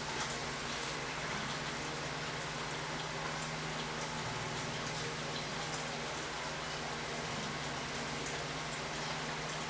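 Steady hiss, like rain or frying, over a low steady hum.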